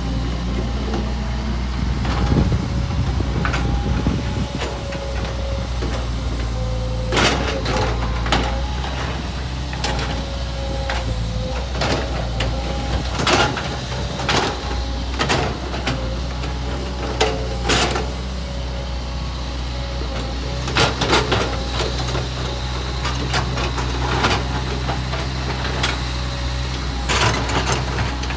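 Excavator's diesel engine running steadily under a steady whine, with repeated sharp knocks and clanks scattered through the working.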